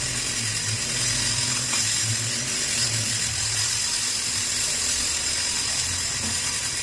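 Milling machine running with an end mill in a drill chuck, cutting a slot into a welded aluminium motorcycle cylinder head: a steady mechanical running noise with a constant high hiss over a low hum.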